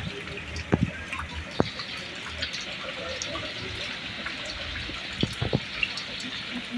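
Heavy rain falling steadily, with a few louder single drops plopping, about a second in and again near five seconds in.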